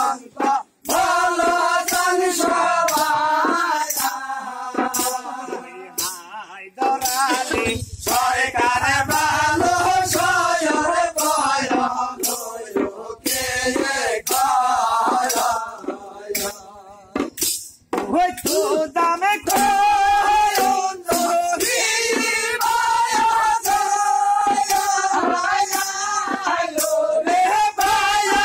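A group of men singing a Bengali village folk song (pala gaan) together, with a hand drum beaten in a steady rhythm and hand-clapping. The singing breaks off briefly twice.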